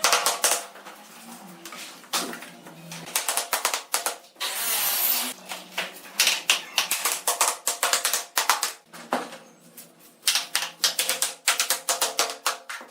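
Rapid, irregular sharp taps and clicks of hand work on bamboo, with a short rasping burst about five seconds in.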